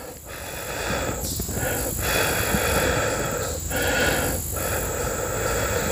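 A person blowing on a freshly lit twig fire in a stainless steel portable wood stove: a run of long, breathy whooshes with short breaks between them.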